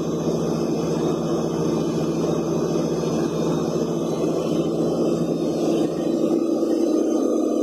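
Engine of a small horizontal directional drilling rig running steadily. Its sound shifts about six seconds in.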